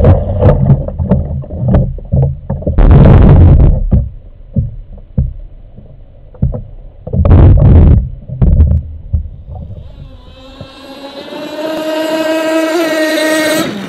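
RC boat's O.S. 21VF-R nitro glow engine running in uneven loud surges, mixed with water splashing against the hull and onboard microphone. About ten seconds in it changes to one steady, high-pitched engine whine of the boat running at speed, heard from the shore.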